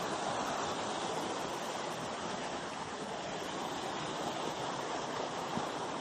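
Steady rush of a stream's water pouring over a rock slab at the top of a waterfall.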